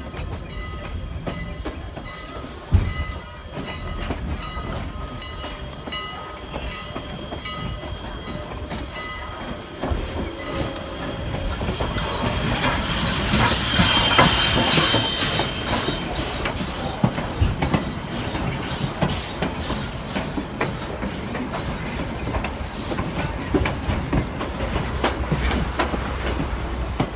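Train pulling in, wheels clicking over the rail joints, with high steady wheel squeal that grows loudest about halfway through. A single sharp thump comes about three seconds in.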